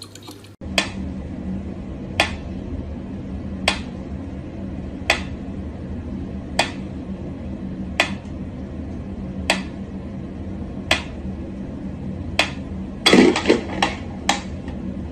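Mechanical pendulum metronome ticking slowly and evenly, about one tick every second and a half, over a low steady hum. About thirteen seconds in, a short burst of louder knocks and clatter.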